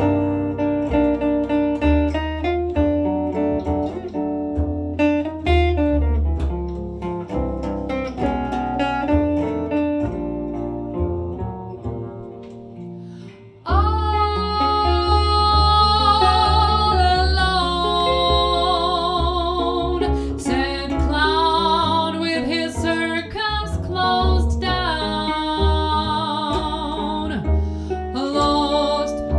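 Jazz guitar solo over a bass line; about a third of the way through the music drops away briefly, then a woman's voice comes in singing long wordless notes with vibrato over guitar and bass.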